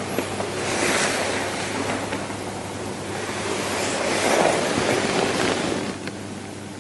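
Waves washing on a shore, a rushing noise that swells about a second in and again about four seconds in, then eases.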